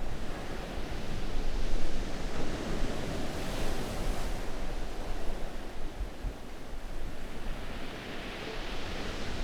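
Steady rushing noise with no clear tone, swelling and easing a few times.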